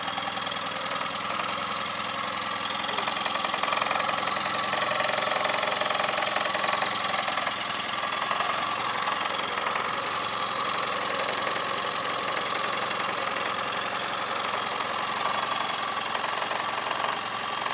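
Outboard motor with its cowling off, idling steadily right after a cold start that caught first time.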